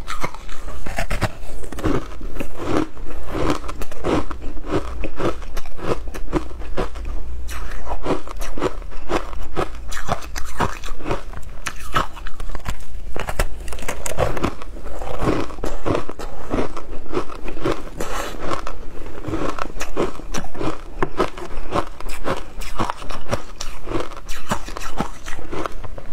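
Close-up chewing and crunching of frozen ice blocks coated in matcha powder: rapid, continuous crackling bites several times a second.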